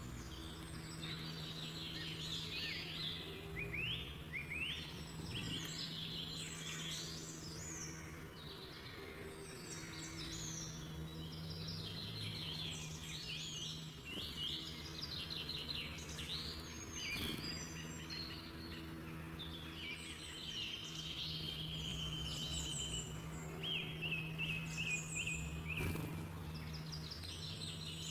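Several birds singing at once, a busy mix of chirps, trills and short repeated notes that keeps going throughout, over a steady low hum.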